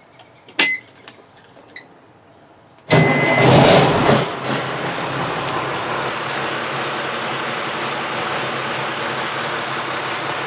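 Ignition key clicks, then the truck's Cummins L10 diesel engine starts about three seconds in, loudest for the first second or so, and settles into a steady idle, heard from inside the cab.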